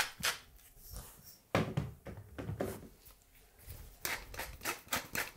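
Hand-twisted salt and pepper mills grinding seasoning over a bowl, giving rapid ratcheting clicks. A short burst comes about a second and a half in, and a steady run of about six clicks a second starts about four seconds in.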